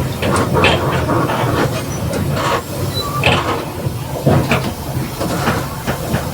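Mercedes-Benz OF 1721 bus, with its four-cylinder diesel, running on the move, heard from inside. A low engine hum sits under frequent irregular rattles and knocks from the body and fittings.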